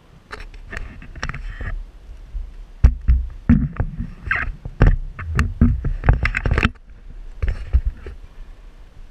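Close handling noise on the camera: irregular knocks, rubbing and dull thumps against its mount on a metal railing, busiest in the middle of the stretch.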